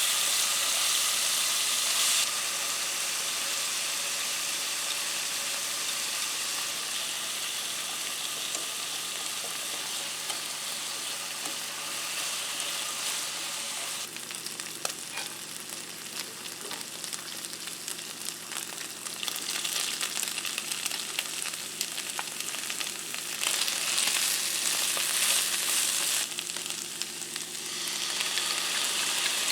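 Food sizzling and frying in a hot pan, with stirring. The hiss steps up and down in level several times, with some small clicks of stirring in the middle.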